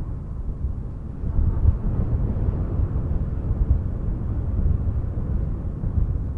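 Wind blowing, a steady low rumbling rush that swells slightly about a second and a half in.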